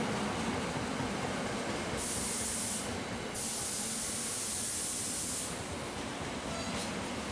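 Steady train noise. A high hiss of air cuts in twice: briefly about two seconds in, then again for about two seconds soon after, stopping suddenly both times.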